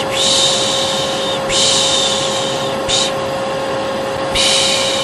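Hair dryer running steadily with a constant hum, overlaid by a person's repeated 'shhh' shushing, each shush about a second long with short breaks between.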